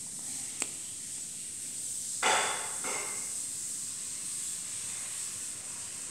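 A steady high hiss, with a sharp click about half a second in and a brief rustling burst just after two seconds in, followed by a fainter one.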